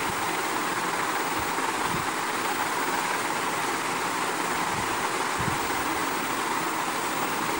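Steady whooshing room noise like a running electric fan, with a few faint soft bumps from hands tearing and crumbling dry roti on a plate.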